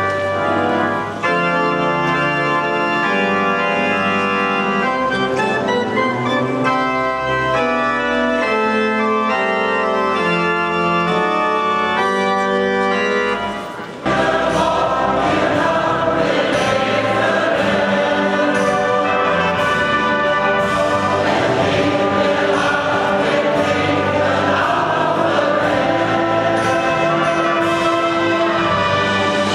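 Small pipe organ playing a melody in steady held chords. About halfway through it cuts off abruptly and is replaced by a crowd singing with brass instruments.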